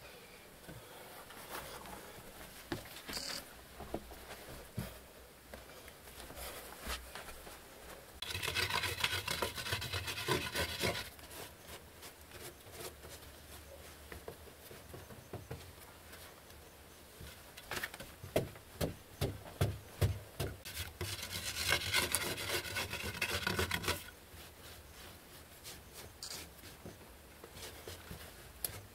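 Scraping and rubbing on hard, dried mud, in two long stretches of about three seconds each, with scattered sharp knocks in between.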